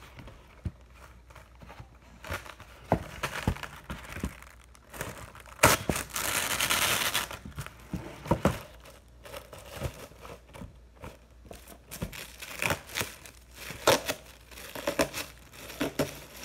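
Glad Press'n Seal plastic wrap being handled: crinkling and rustling of the plastic sheet, with scattered clicks and taps from its cardboard box. About six seconds in, a longer hissing rip as wrap is pulled off the roll.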